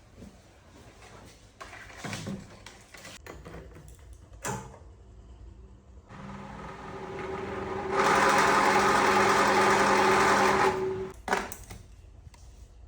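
Small electric motor of a table fan running: a steady whir over a low hum that builds up over a couple of seconds, runs for about three seconds, then cuts off. A few knocks and clicks come before and just after it.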